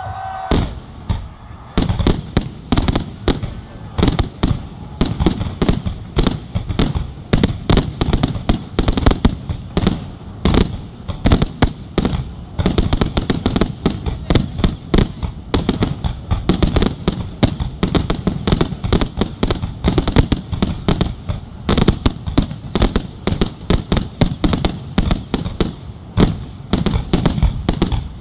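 Aerial firework shells launching and bursting in a dense barrage of sharp bangs, several a second.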